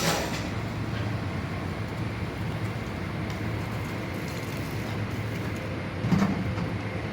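Heavy diesel construction machinery running steadily with a low, even hum, with a brief louder knock or burst about six seconds in.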